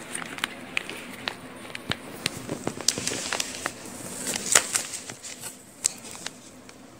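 Plastic fish-shipping bag crinkling and crackling in irregular sharp snaps as it is handled, with a busier cluster about four and a half seconds in.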